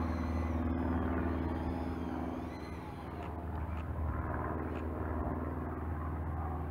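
A steady, low engine-like drone holding one pitch, with faint bird chirps in the first few seconds.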